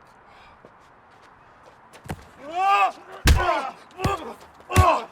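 Fight-scene blows landing, four of them starting about two seconds in, each followed by a short pained grunt. The third blow is the loudest.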